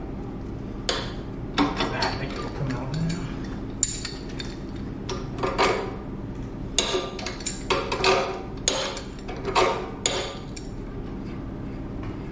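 Metal wrench clinking and scraping on threaded pipe fittings at an air compressor's outlet as they are tightened, in irregular sharp clanks about a second apart.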